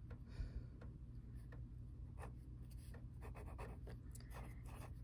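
Erasable gel pen writing on lined notebook paper: faint, irregular pen strokes.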